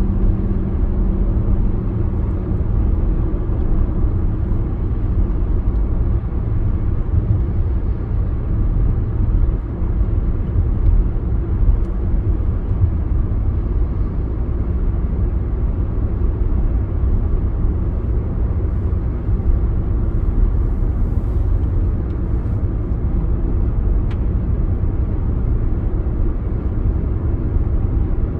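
Steady rumble of a car cruising at highway speed, tyre and engine noise heard from inside the car, unchanging throughout.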